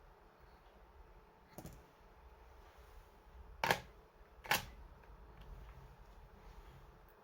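A faint click, then two sharp clicks less than a second apart, from laptop parts being handled during a hard drive and RAM swap.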